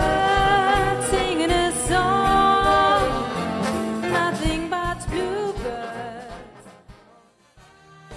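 Big band with brass and saxophones playing long held chords that fade out about seven seconds in. The next piece starts faintly near the end.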